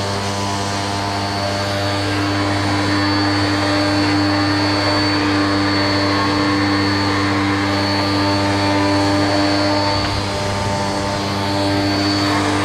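Hyundai 1400-watt electric pressure washer, with a carbon-brush motor and 105-bar pump, running under load as it sprays a jet of water. It gives a loud, steady hum with a faint high whine over the hiss of the spray.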